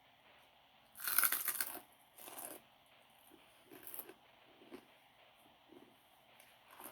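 Close-up eating sounds from a mouthful of pounded rice-noodle salad with pork balls and pork rinds. About a second in there is a loud noisy slurp or crunch, then a shorter one, followed by soft chewing.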